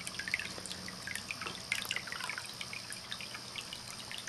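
Water running in a handmade stoneware cat drinking fountain with a jet-flow design: a steady trickle into the basin with many small, irregular drips and splashes.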